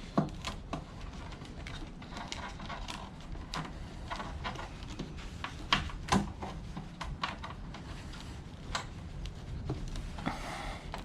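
Irregular plastic clicks and crackles of corrugated split wire loom being worked onto a scooter's wire harness, with a few louder knocks, two of them around six seconds in, over a low steady rumble.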